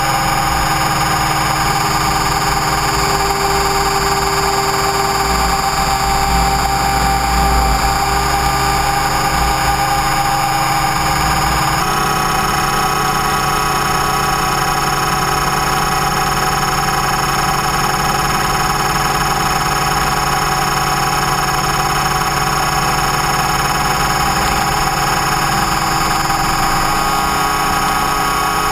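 Electric RC helicopter (Align T-Rex 550E) heard from its onboard camera: a steady whine from the electric motor and drive gears over the rotor noise. The pitch of the whine shifts abruptly about twelve seconds in.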